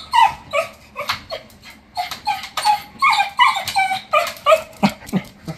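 Cocker spaniel whining: a rapid string of short, high whimpers and yips, some rising and some falling in pitch. Sharp taps run between them, the dog's paws and claws against the front-loading machine's door.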